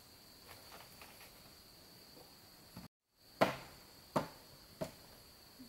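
Three sharp knocks on the timber of a wooden house frame, the first the loudest, with a steady high insect trill behind.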